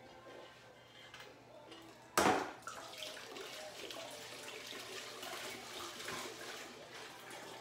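Hands splashing and sloshing in a bucket of Star San sanitizer solution while fishing out equipment, with one loud splash about two seconds in, then uneven swishing and dripping water.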